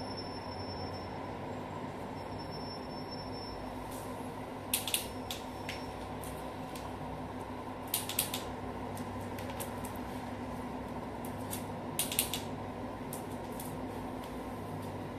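Short sharp clicks in three small clusters, about four seconds apart, over a steady low hum.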